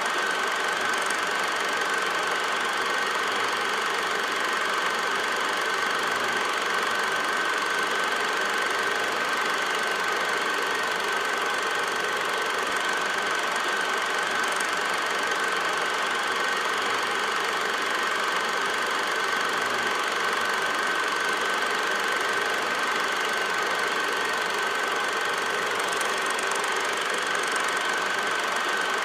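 8mm film projector running steadily: a continuous mechanical whir and clatter with a steady high hum over it.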